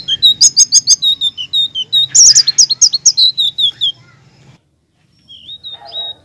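A selendang biru (sitrun) songbird singing a fast, high-pitched run of chirps and whistles that breaks off about four seconds in, then resumes more softly near the end.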